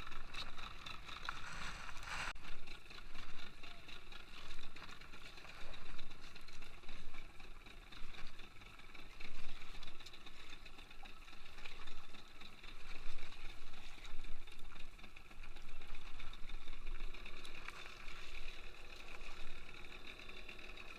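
Small fishing boat at sea: water sloshing against the hull, swelling and falling every second or two, over a steady high hum.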